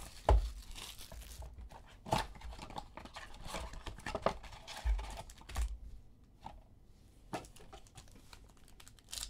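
Plastic and foil trading-card pack wrappers being torn open and crinkled, with cards handled in between: scattered crackles and a few soft knocks, the loudest a thump just after the start.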